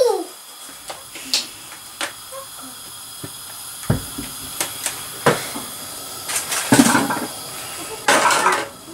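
Scattered sharp clicks and knocks from a frying pan and a plastic oil bottle being handled on a gas hob, over a faint steady hiss, with two louder rustling bursts near the end.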